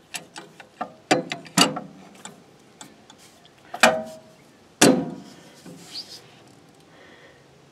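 Sharp metallic clicks and clanks of large channel-lock pliers on the alternator pulley and belt as the Kubota L2350's engine is turned over by hand. There is a quick run of clanks about a second in and two louder ones a little before and after the middle, one ringing briefly. The engine turns, so it is not seized.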